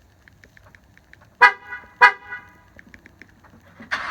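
A Ford F-150's horn chirps twice, short and loud, about a second and a half and two seconds in, over faint quick ticking. Near the end a noisier sound begins, the start of the truck cranking over.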